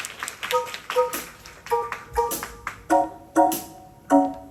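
Live keyboard playing short staccato chords in repeating pairs, about one pair every second and a bit, opening the next song. Scattered claps or taps sound in the first second.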